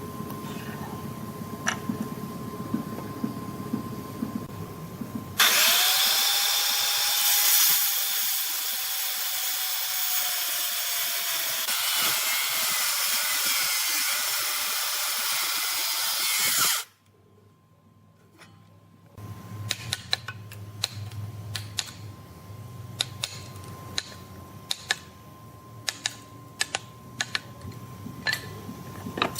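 A handheld power tool working wood runs loudly for about eleven seconds, with a whine that sinks slightly in pitch, then stops abruptly. After a short pause come a series of sharp taps and clicks.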